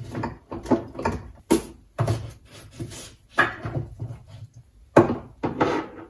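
Spice and baking containers being set down and shifted on a wooden cabinet shelf: a string of short knocks and clatters, the loudest about five seconds in.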